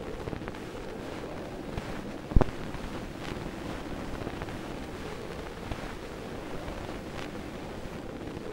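Steady hiss with scattered faint crackles and clicks, an old-film surface-noise effect, with one sharp click about two and a half seconds in.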